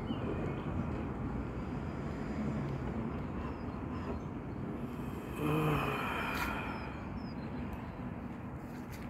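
Steady outdoor city ambience from high above the town: a distant hum of traffic. A little past halfway a brief, louder pitched sound stands out, followed by a faint click.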